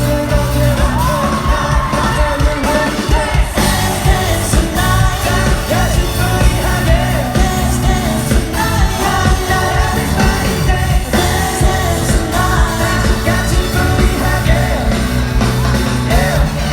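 A live pop-rock band plays a song with singing over it: electric band sound of drums, bass and guitars with a steady beat, loud and continuous through a hall.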